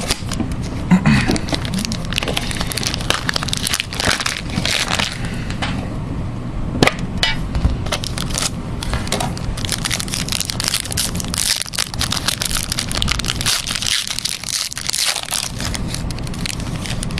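Plastic wrapping crinkling and tearing as a box of trading cards is unwrapped and opened: a dense, continuous crackle with sharp cracks.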